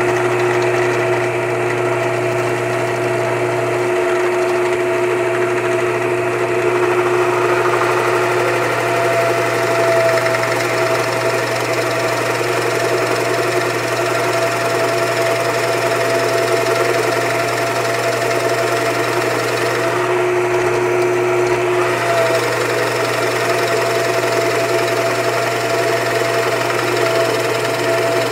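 Bench drill press motor running with a steady hum while a large 1 1/4-inch bit bores through a wooden block.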